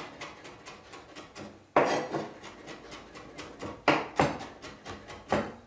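Kitchen knife finely chopping a chili on a plastic cutting board: quick light taps about five a second, with a few louder knocks in the second half.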